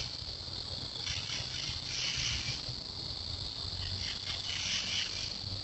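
Night chorus of crickets and other insects chirring steadily, swelling and fading in waves every second or so.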